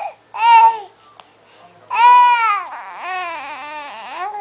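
Baby babbling and squealing: several drawn-out, high-pitched vocal sounds that waver in pitch, the loudest about two seconds in.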